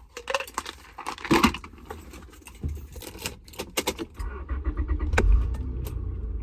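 Keys jangling in a run of sharp clicks, then a car engine's low rumble comes in about four seconds in and grows stronger.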